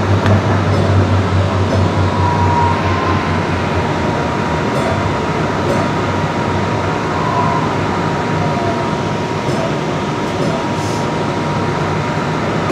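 Light rail train heard from inside the passenger car, rolling slowly into a station: a steady rumble and hiss with a faint steady high whine. The low hum eases after the first three or four seconds as the train slows.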